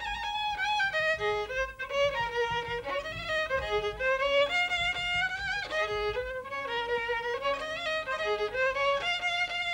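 A violin playing a folk melody in quick successive notes, over a faint low accompaniment.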